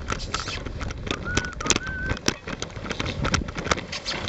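Dog sled moving over packed snow: runners scraping and crunching with irregular crackles, and wind rumbling on the microphone. Two brief high squeals come about a second and a half in.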